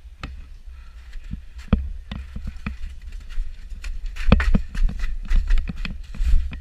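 Irregular knocks and clatter, like footsteps and gear knocking as an airsoft player moves around, over a steady low rumble. The knocks come densest and loudest about four seconds in.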